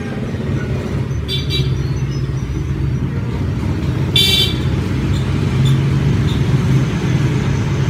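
Road traffic: a steady low engine rumble, with a brief double horn toot about a second in and a louder single toot about four seconds in.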